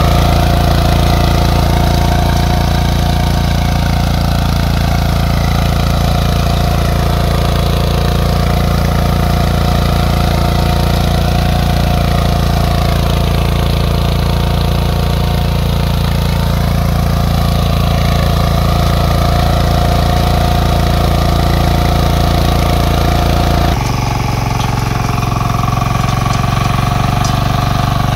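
Engine of an 11 hp walk-behind power weeder running steadily under load as its rear rotary tiller churns dry soil. Near the end the engine note changes suddenly, becoming lower and slightly quieter.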